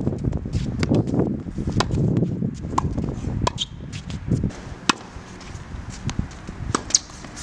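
Tennis ball struck by a racket several times, sharp pops a second or two apart, mixed with quicker shoe steps and scuffs on a hard court. A low rumbling noise fills the first half and fades out.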